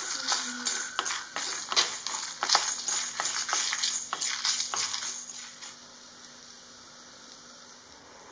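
Wooden spatula stirring dry lentils, coriander seeds and dried red chillies in a nonstick pan as they dry-roast: quick scrapes and sharp clicks of seeds rattling against the pan. The stirring stops about five and a half seconds in, leaving only a faint hiss.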